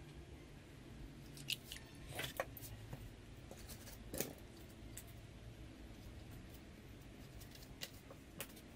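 A few light clicks and taps of a thin balsa sheet being handled, laid onto the wing's ribs and pressed down by hand, over a faint low hum.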